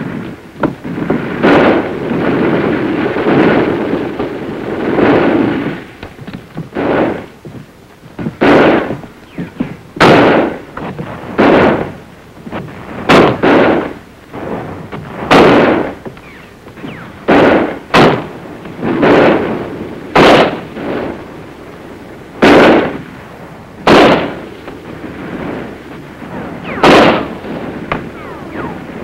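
Repeated rifle fire: about twenty sharp shots, irregularly spaced one every second or two, each with a short echoing tail. A rougher, denser stretch of noise fills the first few seconds.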